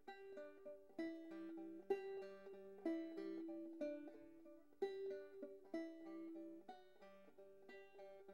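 Quiet background music: a plucked-string instrumental tune, notes picked about twice a second.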